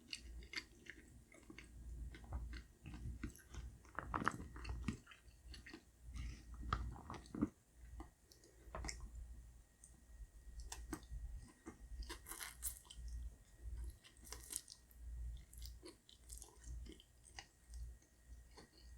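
Close-miked chewing and biting of food, with irregular short crunches and clicks.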